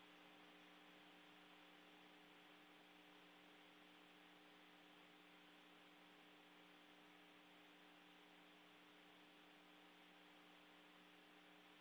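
Near silence: a faint, steady electrical hum made of several low tones, under a soft hiss.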